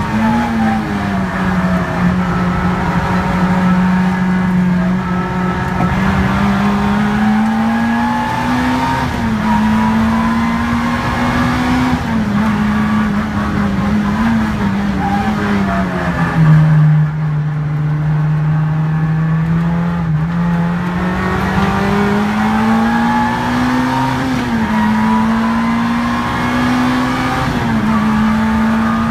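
A Peugeot 106's four-cylinder engine driven hard on a time-attack lap, heard from inside the cabin. The revs climb slowly and drop back again and again as the gears change. About halfway through, the revs fall to a lower, steadier note for a few seconds before climbing again.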